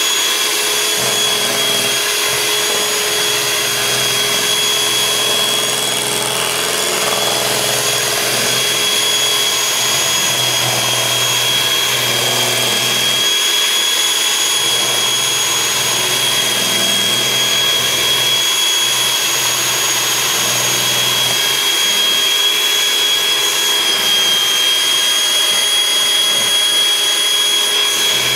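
Electric hand mixer running steadily at one speed, its beaters whipping a runny batter of creamed sugar, oil and eggs, with a steady high-pitched motor whine.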